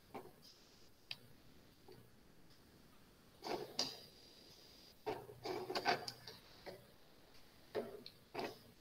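A few faint, scattered clicks and knocks in a quiet room: handling sounds at a computer, such as mouse and keyboard use. Small clusters of them come about three and a half and five seconds in.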